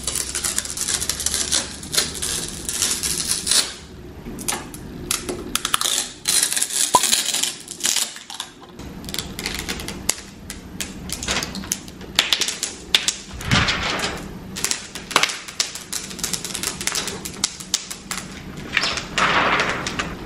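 Protective plastic film being peeled off a flat-screen TV's screen, crackling and crinkling in an irregular run of clicks, with longer tearing rustles near the start and near the end.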